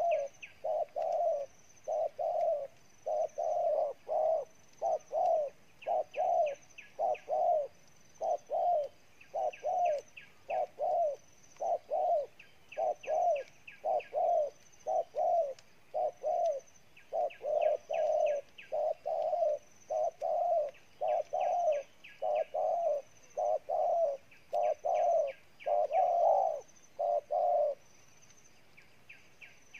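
Spotted doves giving a long run of short bowing coos, a little over one a second, which stop shortly before the end. It is the challenge cooing of a wild male at a decoy bird, which the trapper calls fierce.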